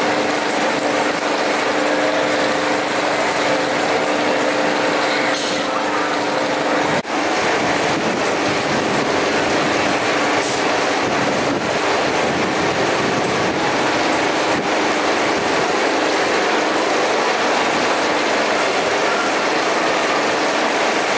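Steady mechanical clatter and rumble of roller coaster machinery, with a ratcheting quality and a few faint clicks, and a low hum of steady tones during the first seven seconds.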